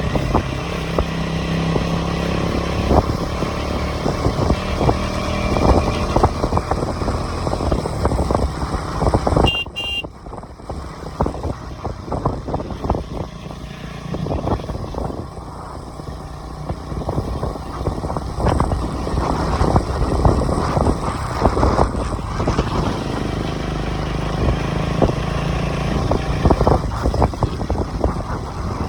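KTM 250 Duke motorcycle's single-cylinder engine running through its stock exhaust. The sound drops suddenly about ten seconds in, stays quieter for a few seconds, then rises again.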